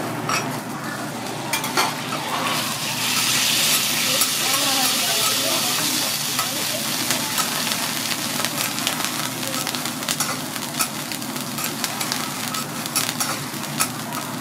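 Food sizzling on a hot teppanyaki steel griddle under a metal dome cover: a steady hiss that grows louder about three seconds in, with scattered pops and crackles throughout.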